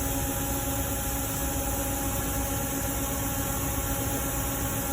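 Steady background hum with hiss, holding a few fixed tones and no distinct events.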